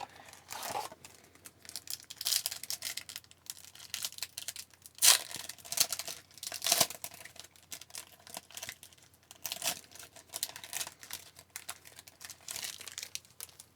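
A trading card pack wrapper being torn open and crinkled, with cards sliding against each other, in a string of irregular rustles and crackles; the loudest tears come about five and seven seconds in.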